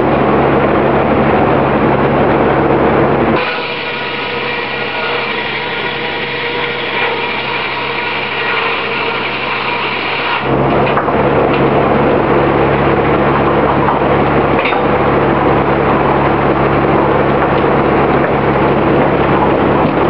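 Early-20th-century Oxford Foundry & Machine Co. sawmill running loudly, with a steady low hum under its machinery noise. About three and a half seconds in, the sound drops to a quieter set of steady high ringing tones. About ten seconds in, the louder noise and hum return.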